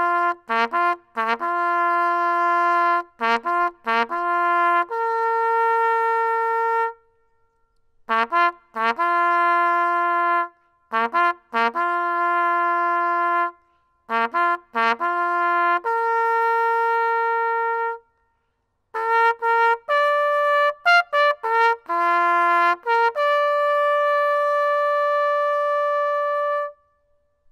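Solo trumpet sounding a military bugle call, in phrases of quick repeated short notes and held notes with short rests between them. It ends on a long held high note.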